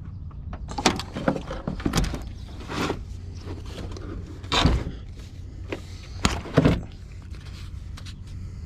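Knocks, scrapes and thuds of a new car battery and its insulation blanket being set down into the battery tray and shifted into place. The loudest thud comes about four and a half seconds in, over a steady low rumble.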